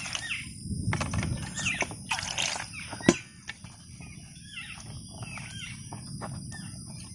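Hands splashing and rubbing small brinjals in water in a steel plate, washing them, with a single sharp knock about three seconds in. Animal calls are heard in the background.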